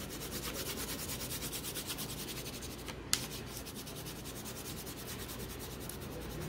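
A crayon laid on its side and rubbed back and forth over paper on a clipboard, shading a large area: a steady, scratchy rubbing in quick, even strokes. One sharp tap about three seconds in.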